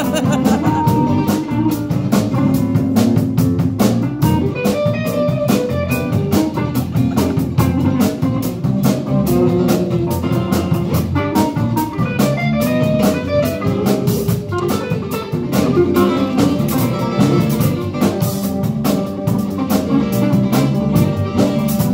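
Live band playing: strummed acoustic guitar and electric guitar over a drum kit, with a steady beat.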